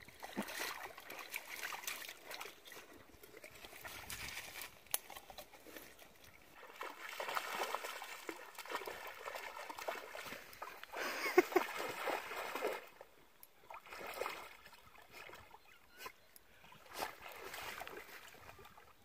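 German wirehaired pointer wading and splashing through shallow water in uneven bursts, loudest about eleven seconds in.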